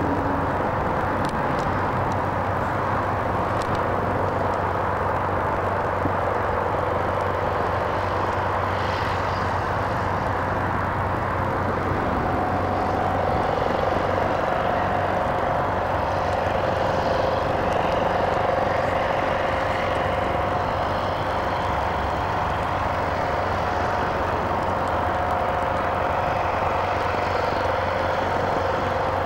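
The AT-10 blimp's engines and ducted propellers running steadily, a constant engine drone with a steady hum under it; a second, higher tone joins about twelve seconds in.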